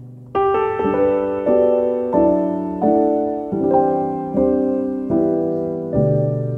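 Background piano music: a slow, even run of struck notes, a new one about every two-thirds of a second, each left to ring and fade.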